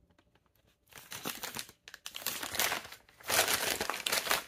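Brown paper bag crinkling and rustling as hands open it and reach inside, in three bursts after about a second, the loudest near the end.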